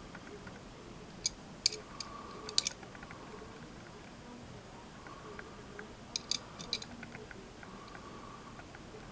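Light, sharp clicks and taps of a small diecast model car being handled, in two short clusters: one about a second and a half in, the other about six seconds in.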